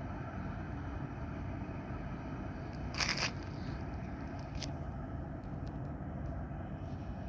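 Steady low rumble of distant harbour noise, with a short scrape about three seconds in and a sharp click about a second and a half later.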